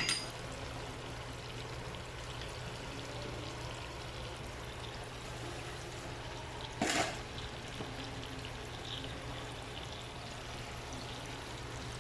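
Salmon fillets sizzling in butter in a frying pan: a steady, soft hiss with a low hum beneath it. A brief knock about seven seconds in.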